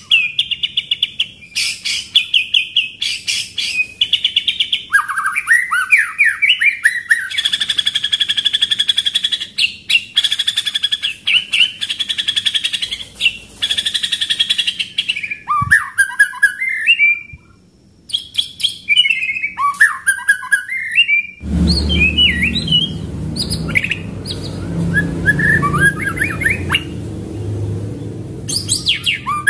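A caged white-rumped shama (murai batu) singing loud, fast, varied song: rapid repeated notes and rolling trills, sliding up and down, with a brief pause a little past the middle. From about two-thirds of the way through, a low background rumble lies under the song.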